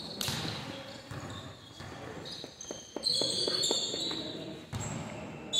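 Basketball bouncing on the gym court, with a quick run of bounces near the middle, amid short high squeaks and voices echoing in the hall.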